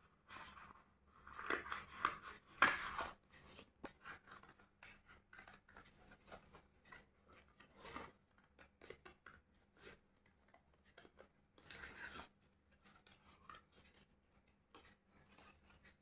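Scissors cutting through folded invitation-card stock: a run of short, crisp snips, louder and denser about one to three seconds in and again around twelve seconds.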